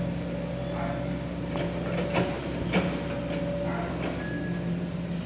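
Diesel engine of a Kobelco SK140 long-reach excavator running steadily under load, with several sharp metallic knocks and clanks as the arm and bucket work; the loudest knocks fall a little over two seconds in and again just before the three-second mark.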